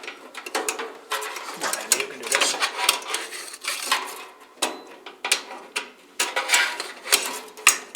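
Metal parts of a kerosene heater clinking, scraping and clicking as a part is worked by hand into its mechanism: an irregular run of sharp clicks and short rattles.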